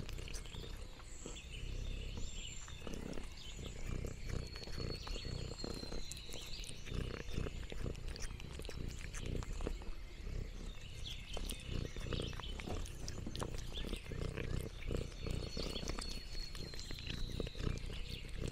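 Domestic cat purring steadily close to the microphone, with scattered light clicks and high chirps over it.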